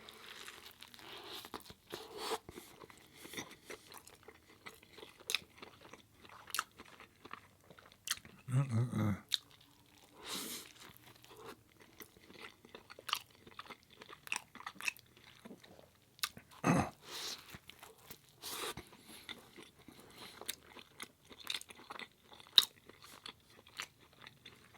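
A person chewing and biting food close to the microphone: irregular wet mouth clicks and short chewing noises throughout.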